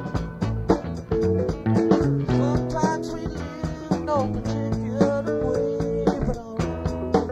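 Background music: plucked guitar over a bass line with a steady beat.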